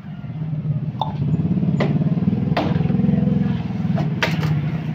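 Motor vehicle engine running and getting louder, with a few short sharp sounds over it.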